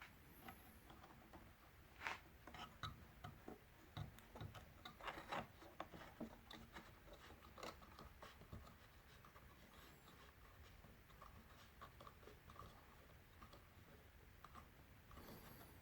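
Near silence in a small room, broken by scattered faint clicks and rubbing sounds that are busiest in the first half.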